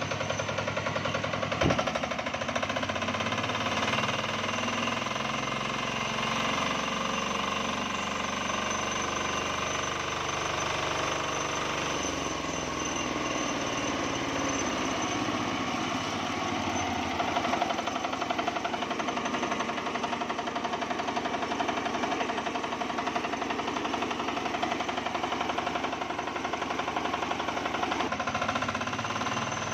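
Matsumoto diesel engine running steadily with a rapid knocking clatter as it drives a homemade sawmill. About twelve seconds in, the engine note dips and shifts for a few seconds, as if it is taking load, then settles again.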